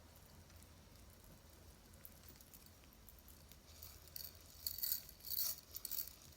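Jewelry being handled: strands of pearls and a metal chain and clasp clicking and jingling together in short rattles, starting about four seconds in after a faint pause.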